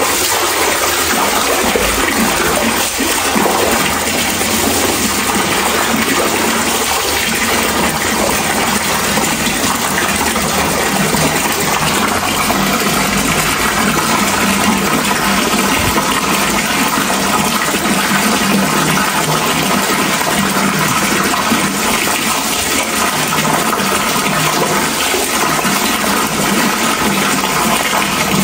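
Steady rushing water: a loud, even, unbroken wash of noise that does not change.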